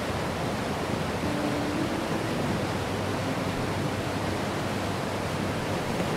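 Steady rushing of wind and water around a racing yacht sailing under spinnaker: an even hiss with no letup.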